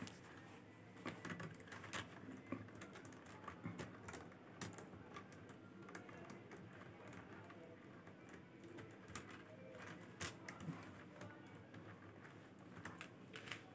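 Faint, irregular clicking of faceted plastic beads knocking together as a beaded bag is handled and beads are threaded on with a needle and clear thread.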